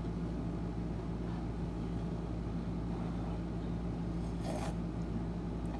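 Steady low background hum, with one short slurp of noodle broth being drunk from a cup about four and a half seconds in.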